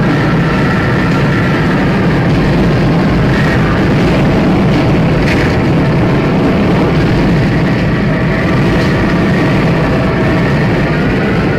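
Loud, steady distorted rumbling noise with faint wavering high tones over it, a digital glitch sound effect.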